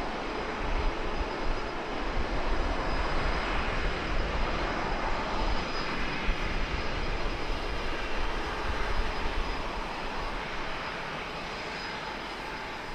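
Jet airliner engines making a steady rushing noise that eases off over the last few seconds.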